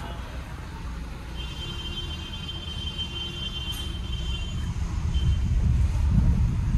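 Road and engine noise inside the cabin of a moving Mahindra XUV700, growing louder toward the end. A faint steady high-pitched tone sounds for about three seconds starting about a second and a half in.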